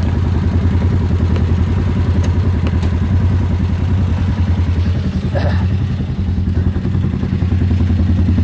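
ATV engine running steadily at low speed, with an even pulsing throb.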